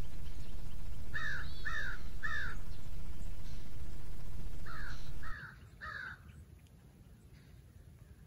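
A crow cawing in two series of three caws, each caw about half a second apart, over a steady low rumble that cuts off abruptly about five seconds in.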